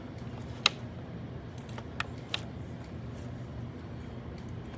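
A few sharp clicks from handling a small plastic label printer, the loudest about two-thirds of a second in and two lighter ones around two seconds in, over a steady low hum.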